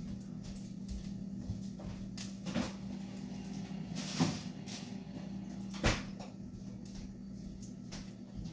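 A few sharp knocks of kitchen handling, about two and a half seconds in, at four seconds and near six seconds, over a steady low hum.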